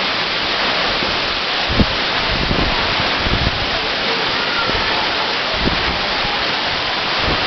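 Waterfall pouring, a steady loud rush of falling water, with a few brief low thumps.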